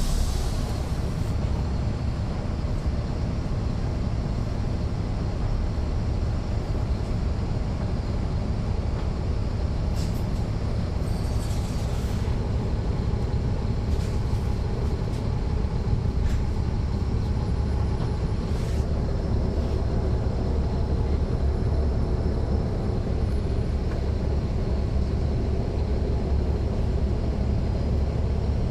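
Caterpillar C13 ACERT diesel engine of a NABI 40-foot transit bus running steadily, heard from the rear seats inside the bus with its ZF Ecomat automatic transmission, a deep steady drone. A brief hiss at the start and a few sharp clicks and rattles in the middle.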